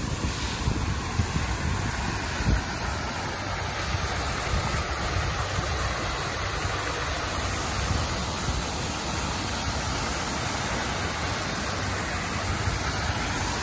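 Park fountain jets spraying up and splashing back into a pond: a steady rushing of falling water.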